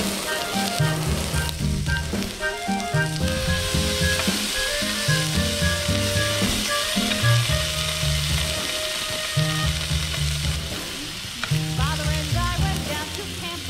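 Beef slices sizzling and frying in a hot nonstick frying pan, the sizzle growing denser about three seconds in as a raw slice goes in. Background music with a steady beat plays over it.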